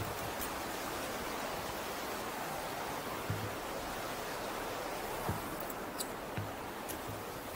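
Steady rushing of the Niagara River's rapids, an even wash of water noise, with a few soft knocks over it.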